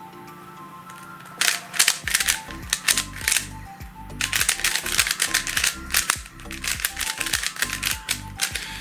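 A QiYi Sail W plastic 3x3 speed cube, unlubricated and straight from the box, being turned quickly by hand: quick runs of clicking and clacking layer turns with short pauses between, starting about one and a half seconds in. Background music plays underneath.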